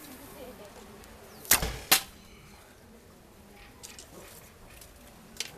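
An arrow shot from a homemade bow: a sharp snap as the string is released, then a second sharp crack about half a second later as the arrow strikes the tin-can target.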